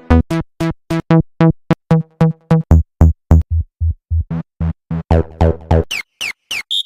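Hard trance synth presets made in Serum auditioned one after another: short pitched stabs with a heavy low end, repeating about four times a second. Near the end the sound changes to higher notes with quick pitch glides.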